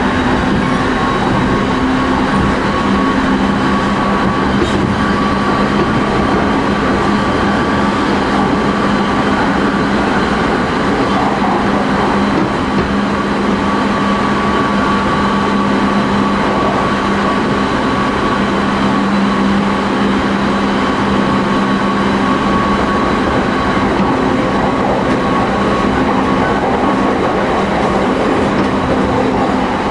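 Running noise inside a JR East 209-500 series GTO-inverter electric train's motor car at a steady speed. A dense rumble of wheels on rail carries several steady hum and whine tones that hold their pitch without rising or falling.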